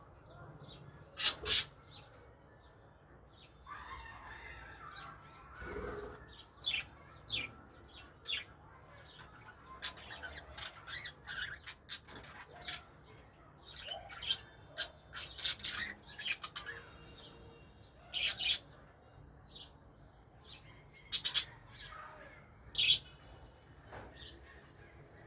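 Budgerigars chirping in many short, scattered calls, a few of them sharply louder.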